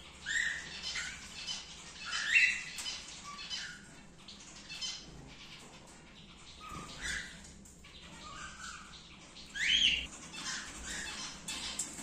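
Cockatiels calling, with a zebra finch in the same flight: a string of short rising calls every second or so, two of them louder.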